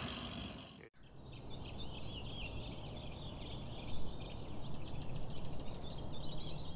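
Many small birds singing in a morning chorus, a dense run of high chirps over a low steady background hiss. In the first second, wind noise from riding cuts off abruptly.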